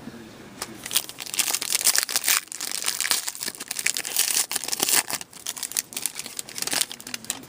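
Plastic wrapping of a hockey card pack being torn open and crinkled by hand, an irregular run of crackles and rustles.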